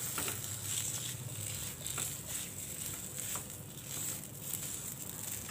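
Steel spoon stirring and pressing mashed potato in a nonstick frying pan: soft scraping and squishing strokes over a faint steady sizzle of oil in the hot pan.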